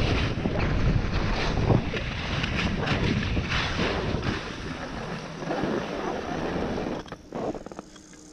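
Skis hissing and scraping over snow at speed, with wind rushing on the microphone; the rushing dies down suddenly near the end as the skier slows almost to a stop.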